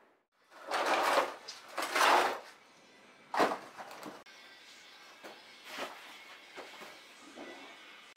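Broken floor tiles and brick rubble scraping and clattering as they are cleared into a plastic crate. Two rough scrapes come about a second apart, then a couple of sharp knocks.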